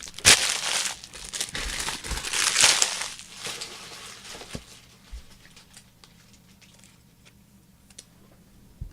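Foil wrapper of a trading-card pack crinkling as it is torn open, loudest over the first three seconds, then dying down to faint scattered ticks.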